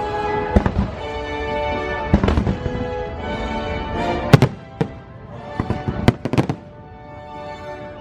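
Fireworks show: shells bursting in a string of sharp bangs, the loudest about four seconds in, over the show's sustained music soundtrack.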